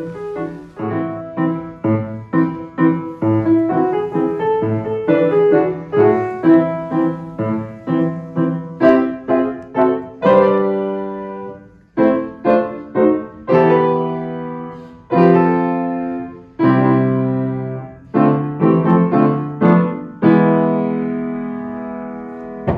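Upright piano played solo: a quick melody over chords for the first half, then slower full chords, ending on a long held chord that dies away.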